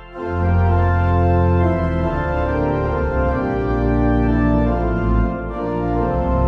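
Organ music: sustained chords moving from one to the next, starting a new phrase right after a short break at the beginning, with a brief lift again about five seconds in.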